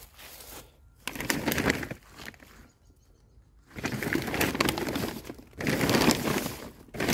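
Black plastic sheeting over a compost bin crinkling and rustling as it is handled, in three stretches with short pauses between them.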